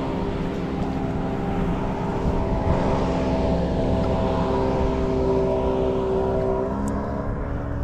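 Motorboat engine running at speed as the boat passes, a steady drone of several tones over a low rumble, shifting slightly in pitch near the end.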